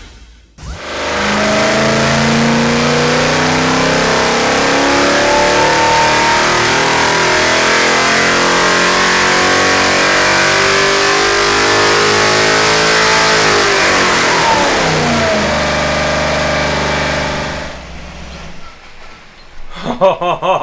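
Holden 308 cubic-inch V8 making a full-throttle power pull on an engine dyno. Its revs climb steadily for about twelve seconds, then fall sharply as the throttle closes, and it settles to a steady idle near the end.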